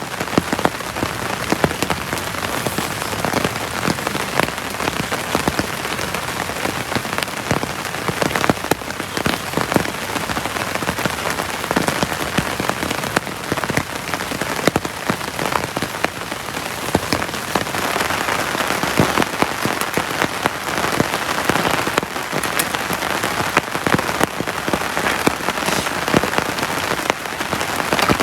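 Heavy rain falling steadily, with many individual drops striking close by as sharp ticks over a continuous hiss of rain.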